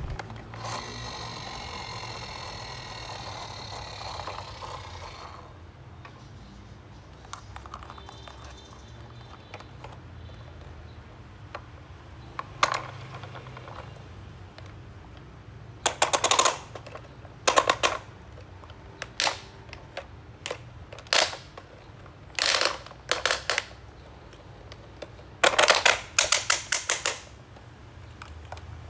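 Hard plastic toy parts being handled: a squeaky scrape for the first few seconds, then bursts of rapid clicking and clattering as the toy excavator's arm and the truck are moved about in a plastic basket.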